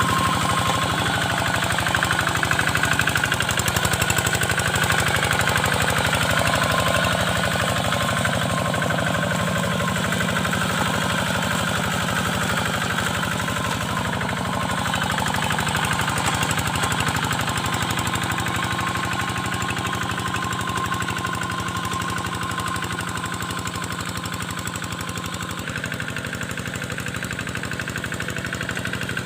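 Single-cylinder Kubota diesel engine of a two-wheel hand tractor running steadily with a rapid, even chugging while it ploughs a flooded paddy field.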